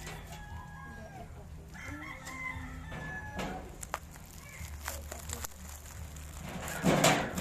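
A rooster crowing in the background, its call drawn out over a second or so, with a short loud noise near the end.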